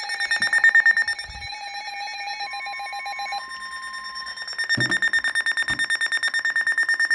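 Emergency alert tones for a severe thunderstorm warning: several overlapping alarm tones pulsing rapidly. A separate steady tone sounds from about two and a half seconds in to about four seconds, and the pulsing grows louder again near the end.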